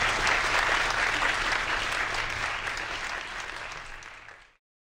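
Audience applauding at the end of a talk, a dense patter of many hands clapping that thins out after about three seconds and cuts off suddenly.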